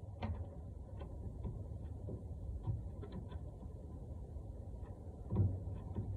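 Scattered light clicks and taps of hand tools and metal parts being handled during brake work, a dozen or so at uneven intervals, with a heavier knock about five and a half seconds in, over a steady low background rumble.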